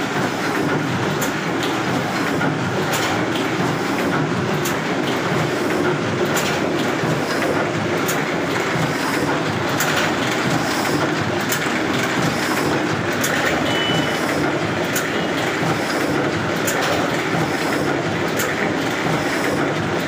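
Heidelberg SBB cylinder letterpress running, a steady mechanical clatter with sharper clacks roughly once a second.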